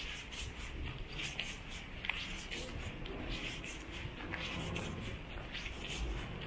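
Quiet outdoor street ambience: a steady low rumble with many short, high ticks and chirps scattered through it.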